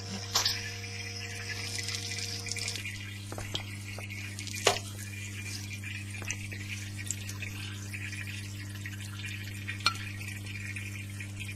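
Aquarium water trickling and splashing softly over a steady low hum, with a few sharp clicks, once early, once near the middle and once near the end.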